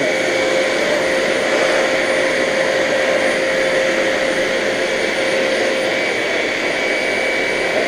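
Vacuum cleaner running steadily, a constant whine from its motor over the rush of air.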